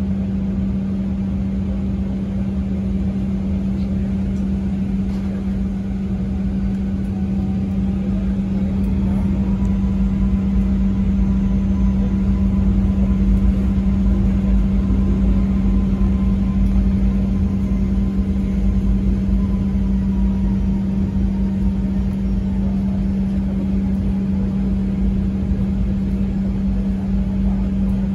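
Steady engine drone and low rumble heard from inside a moving vehicle, with one strong unchanging hum throughout and a faint higher tone in the middle.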